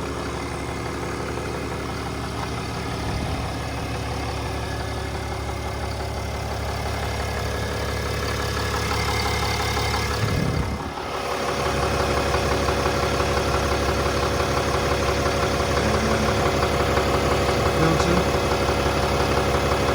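Ram 6.7 Cummins high-output turbo-diesel inline-six idling steadily on fresh oil just after an oil change, running smoothly. The sound dips briefly near the middle, then carries on as before.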